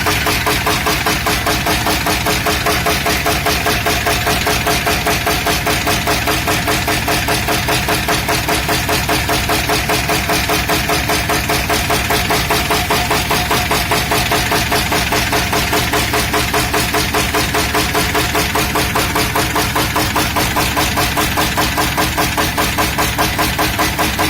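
UMZ-421 four-cylinder petrol engine from a UAZ running steadily at idle with a regular, rhythmic knock, a sign that something has gone wrong inside the engine.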